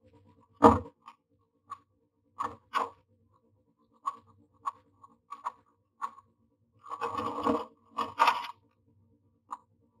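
A common myna scrabbling into a wooden nest box: claws scratching on the wood and dry grass nesting material crunching and rustling in sharp, scattered bursts, busiest about seven to eight and a half seconds in. A faint low hum runs underneath.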